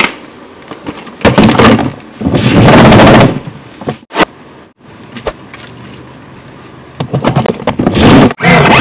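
Loud bursts of rapid clicking and clattering, three in all and each about a second long, as the plastic seat and steering wheel of a child's ride-on electric car are pushed and snapped into place.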